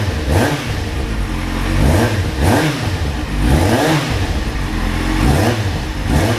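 Kawasaki Z750 inline-four engine revved several times, rising and falling in pitch, now free of the knock that had sounded like a connecting-rod knock: the cause was a leaking exhaust header, cured with new header gaskets and welding at the header inlets.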